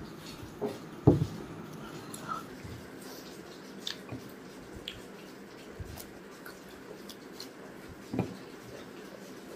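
Swallowing water from a glass, then a thump about a second in as the glass goes down on the table. After that come faint clicks and small mouth and finger sounds of eating with the hands from a plate, with another soft thump near the end.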